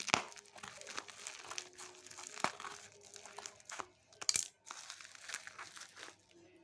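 Packaging crinkling and rustling as it is handled and opened during the unboxing of a flashlight, with irregular small crackles and two sharper bursts: one at the very start and one a little past four seconds in.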